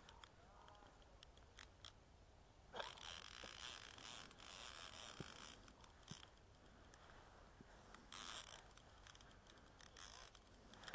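Near silence, broken by short rustling, scraping handling noise from gloves, clothing and the ice rod and reel: one burst about three seconds in lasting nearly two seconds, a shorter one about eight seconds in, and a few faint clicks.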